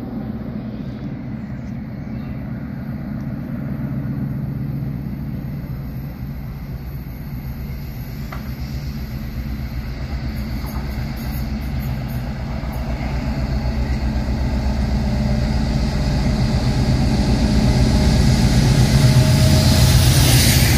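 A pair of Class 56 diesel locomotives thrashing under power, their 16-cylinder Ruston-Paxman engines growing steadily louder as the locomotives approach and pass close by hauling a freight train.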